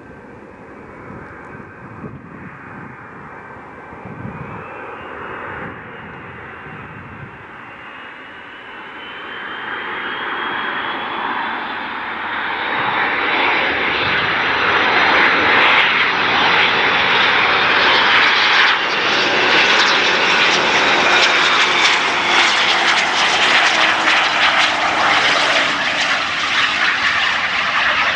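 Boeing 757's twin jet engines on final approach, growing steadily louder as the airliner comes in low and passes. A high whine climbs in pitch as it nears, and a lower tone falls in pitch in the last seconds as it goes by.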